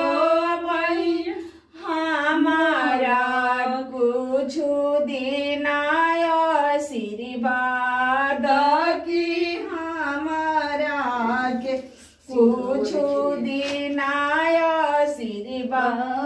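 Women singing an unaccompanied Bhojpuri devotional folk song, with long held, wavering notes and two brief pauses for breath.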